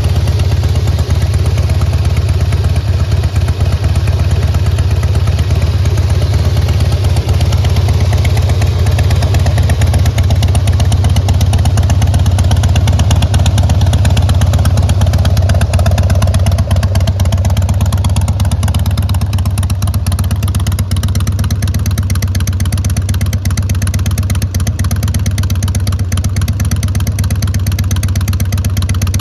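2004 Harley-Davidson Heritage Softail Classic's fuel-injected Twin Cam 88B V-twin engine idling steadily.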